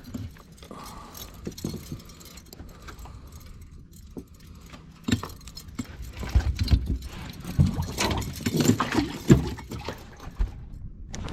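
Scattered handling noise: irregular clicks, light knocks and rattles, busier with low thumps about six to nine seconds in.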